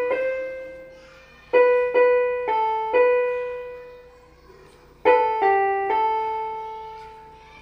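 Small electronic keyboard playing a slow single-note melody: four notes, a short pause, then three more, the last one held and fading out.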